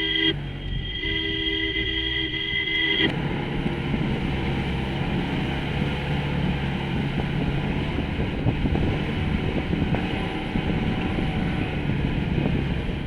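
An off-road jeep driving up a rough, bumpy track, its engine running under a steady clatter and rumble. A two-tone vehicle horn sounds at the very start and is held again for about two seconds shortly after.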